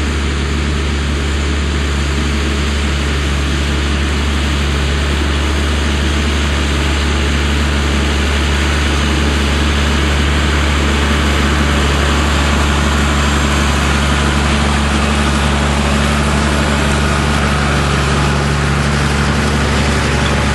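Tractor engine running steadily, a constant low drone that does not rise or fall.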